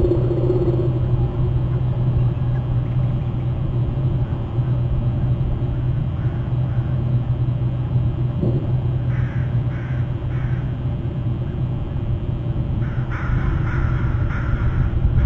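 Crows cawing: three calls about nine seconds in, then a longer run of calls about thirteen seconds in, over a steady low rumble.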